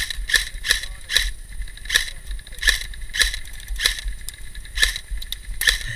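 Airsoft gun firing single shots: about ten sharp cracks at uneven spacing, from a half second to a second apart.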